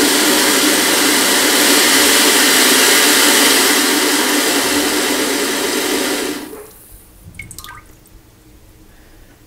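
Luxe Bidet Neo 185 non-electric bidet attachment's feminine-wash nozzle spraying a strong jet of water into the toilet bowl: a loud, steady hiss and splash that stops about six and a half seconds in.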